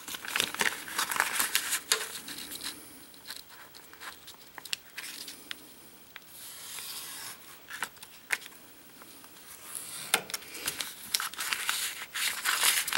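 Crinkling and rustling of a plastic dry-film solder mask sheet as it is handled and cut with a hobby knife, with scratchy cutting strokes and a few sharp clicks.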